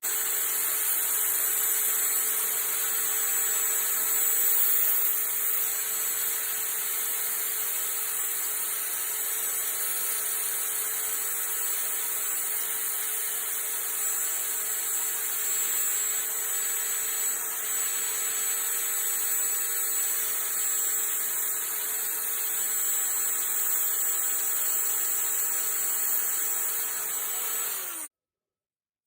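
Small power tool running steadily with a constant whine, grinding down the blade of a flat-bladed screwdriver. It cuts off suddenly near the end.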